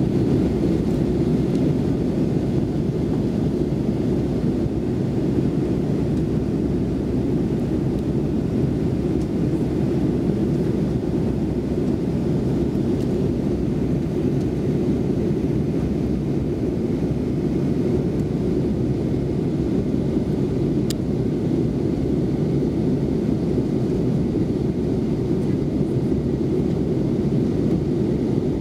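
Steady cabin noise of an Airbus A320 airliner in flight: the low, even rumble of the jet engines and airflow heard from inside the fuselage.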